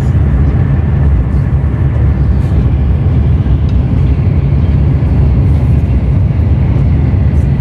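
Steady low rumble of a Haramain high-speed train heard inside the passenger car while it runs at high speed.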